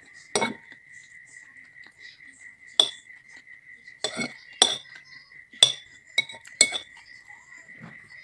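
Metal cutlery clinking and scraping against a ceramic bowl while noodles are scooped up, in about seven separate sharp clinks. A steady high-pitched whine runs underneath.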